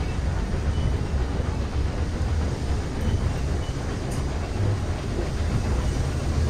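Steady low rumble of a vintage railway passenger carriage running along the track, heard from inside the carriage, on a train hauled by a steam locomotive.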